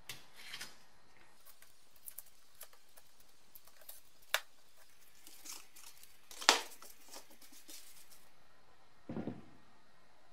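Hands picking and scraping at the hub ring of a black plastic engine cooling fan, with crinkly scraping and scattered clicks and knocks of plastic on a workbench. The sharpest click comes about six and a half seconds in, and a short duller clatter near the end.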